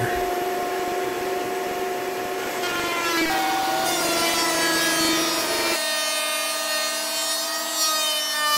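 Benchtop thickness planer running with a steady whine while hardwood boards are fed through and planed. A little over halfway through, the sound changes abruptly and the low rumble drops out.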